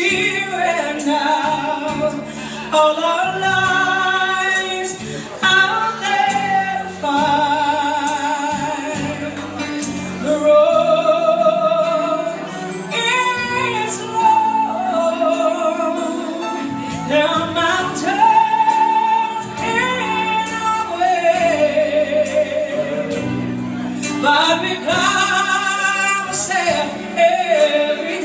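A woman singing a ballad into a handheld microphone over backing music, her held notes wavering with vibrato.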